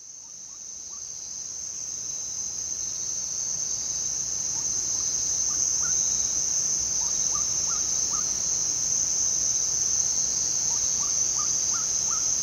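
Nature ambience: a steady, high-pitched insect drone that fades in over the first few seconds, with several runs of short rising chirps from a small animal over it.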